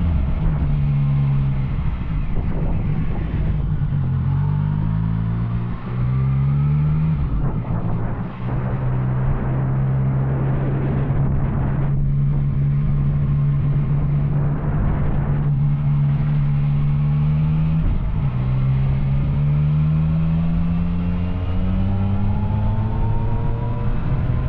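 Yamaha Tracer 900's three-cylinder engine through an Arrow aftermarket exhaust, under way. In the first seconds it revs up and drops back several times as it shifts up through the gears, then holds steady at cruising speed, and pulls up through the revs again in the second half. Wind rush runs underneath.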